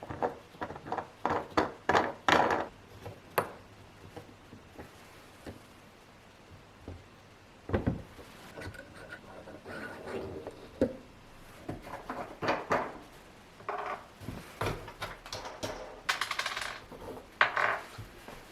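Small hard objects being handled: irregular clicks, knocks and light clatter, in clusters near the start, through the middle and near the end.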